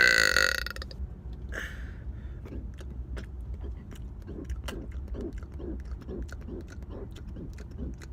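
A man's loud, long burp with a falling pitch, tailing off within the first second, followed by small scattered clicks and faint mouth sounds over a low steady hum.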